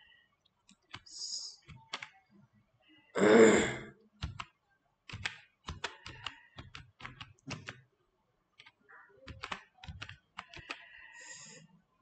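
Computer keyboard being typed on: a run of separate key clicks as a word is entered, with one short, louder noise about three seconds in.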